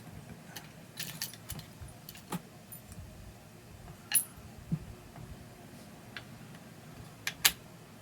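Small metal parts and tools clinking and clicking against each other and the workbench as they are picked through, with a few sharper clicks about four seconds in and twice near the end.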